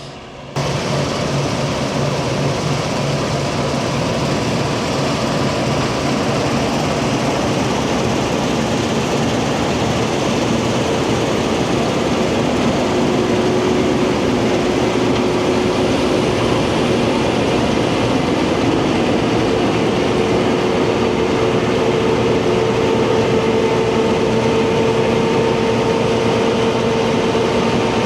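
Heavy diesel harvest machinery running steadily under load, with a steady mechanical whine that comes in about halfway through and grows stronger.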